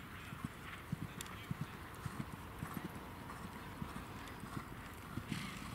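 Horse's hooves thudding on grass turf at a canter, a quick uneven run of low beats.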